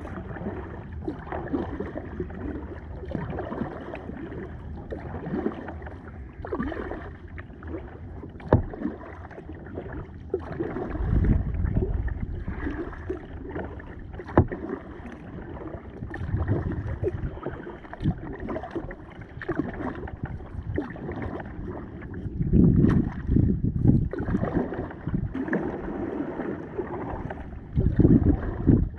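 Kayak paddling on a river: the paddle dips and splashes in the water in a steady stroke rhythm, with an occasional knock. Gusts of wind rumble on the microphone now and then.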